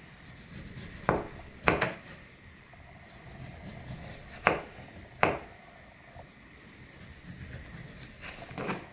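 Maxace Amber 2S folding knife slicing an orange into thin slices, the blade coming down on the cutting board in a handful of sharp knocks a second or more apart, with quiet rubbing between strokes.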